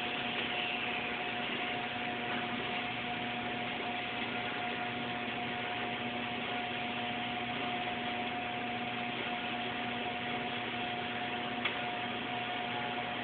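Stick (shielded metal arc) welding with an E7018 electrode: the arc runs with a steady hiss, over a steady hum. One short click near the end.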